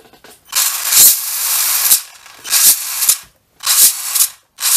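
Brushless motor and geared drivetrain of a Traxxas 1/16 E-Revo spinning up in short throttle blips with the wheels off the ground, a whirring, gear-rattling rush. There are four blips, the first the longest at about a second and a half.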